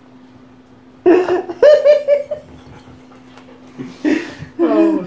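About a second in, loud fits of laughter from two people break out, mixed with a large dog's whining.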